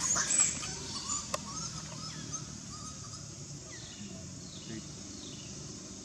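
Outdoor woodland ambience: faint bird chirps and calls over a steady background of insects, after a brief loud rustle of dry leaves and ground litter at the very start.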